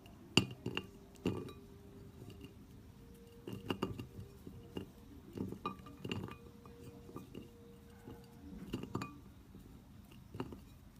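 Slime being handled by hand for ASMR, making irregular small clicks and clinks.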